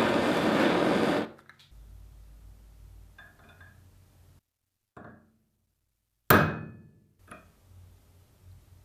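A gas torch's flame hisses steadily and cuts off a little over a second in. About five seconds later a single sharp hammer blow on a punch set against the metal shear's frame rings briefly.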